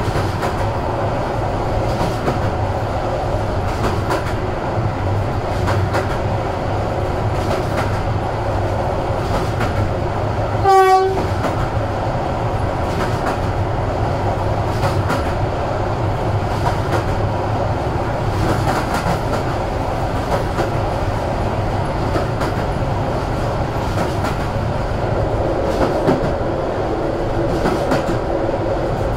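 Passenger train running at speed, heard from on board: a steady rumble of the wheels on the track with rail-joint clicks. About eleven seconds in, a train horn sounds once, briefly.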